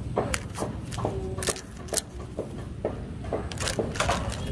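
Black plastic toy train track pieces clicking and clattering against one another as they are gathered up and dropped into a plastic basket: an irregular run of sharp clicks and knocks.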